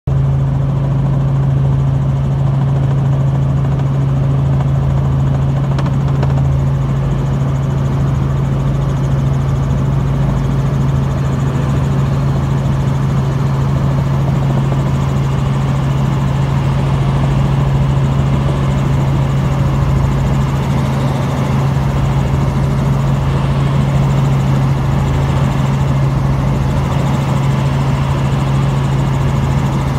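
Helicopter in flight heard from on board: a loud, steady drone of engine and rotors with a strong low hum.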